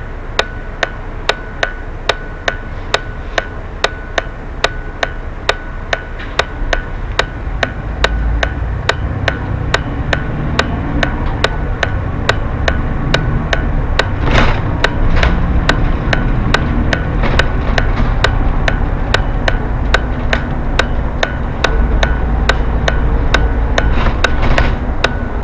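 Bus turn-signal relay ticking steadily, a little over two ticks a second, over the low rumble of the bus engine, which grows louder about a third of the way in as the bus pulls away.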